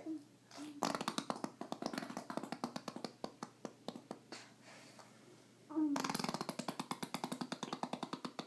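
Baby blowing raspberries, lips sputtering in two long runs of rapid pulses: one starting about a second in and lasting about three seconds, another starting near six seconds in.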